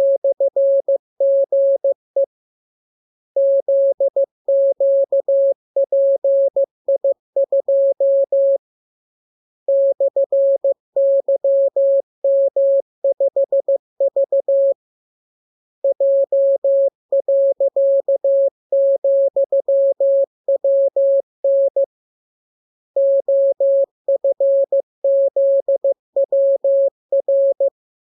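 Morse code practice signal: a single steady-pitch tone keyed on and off in dots and dashes, sending the lesson's characters in runs of a few seconds with pauses of about a second between them.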